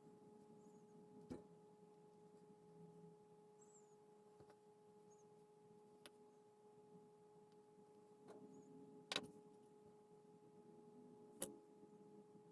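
Near silence with a faint steady hum, broken by a few small sharp clicks, the loudest about nine seconds in.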